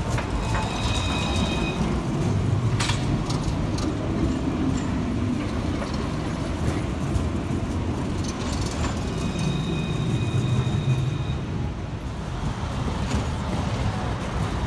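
Luas light-rail tram running past on street track: a steady low rumble from the running gear with a few sharp clicks. A thin, steady high tone with two pitches sounds briefly twice, about half a second in and again around ten seconds.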